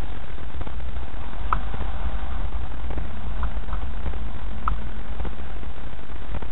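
Cabin noise of a vehicle driving over a rutted dirt track: a steady low rumble with repeated knocks and rattles from the bumps, and a few short high squeaks.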